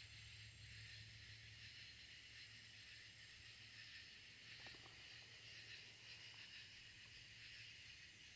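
Near silence: a faint steady hiss of outdoor night background.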